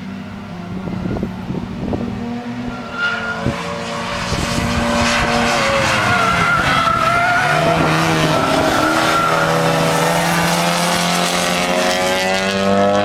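Race-track cars passing close by, engines getting louder about four seconds in. A wavering tyre squeal runs from about five to nine seconds, and the engine note then rises as the cars accelerate away.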